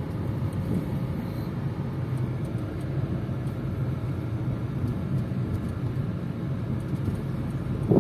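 Cabin of a 2014 Volkswagen Touran 1.6 DSG on the move: a steady low drone of road and engine noise, with faint light ticks now and then. The car is otherwise quiet inside, the only squeak coming from water canisters in the boot.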